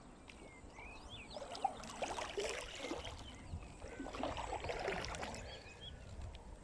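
Kayak paddle strokes: two splashing, dripping sweeps of the paddle blade through the water, a couple of seconds apart. Birds chirp briefly before the first stroke.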